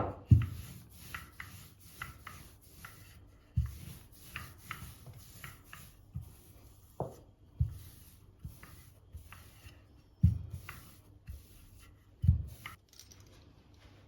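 Kitchen handling sounds: irregular dull knocks of utensils and containers being set down or tapped on a countertop, with lighter clicks and rubbing between.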